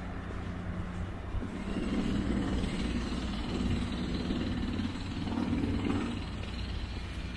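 A vehicle passing: a low engine-and-road sound swells for a few seconds in the middle and fades near the end, over a steady low hum.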